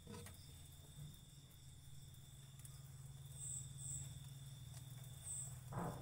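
Crickets singing in a steady, faint high trill, with a few brief higher chirps in the middle, over a low steady hum. A short rustle comes near the end.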